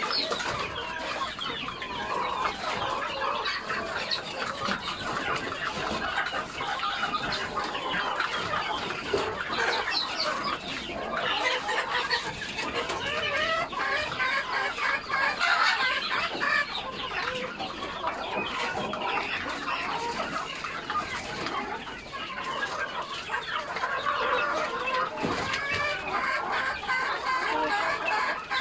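Flock of backyard gamefowl chickens clucking and calling all at once, a dense continuous chatter of many birds.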